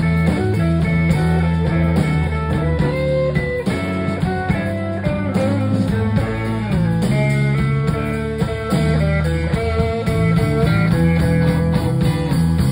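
Live blues band playing: electric guitar lead lines with bent notes over electric bass and drums.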